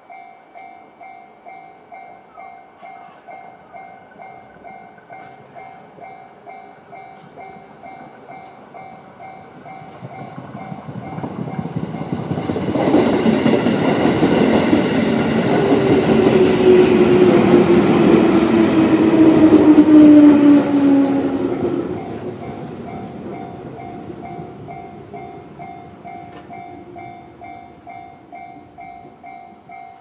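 A JR-standard electronic level-crossing alarm rings in steady repeated dings. A JR 211-series electric train passes, building up from about ten seconds in and loudest just before twenty seconds, with a falling whine as it goes by. Its sound dies away a couple of seconds later while the alarm keeps ringing.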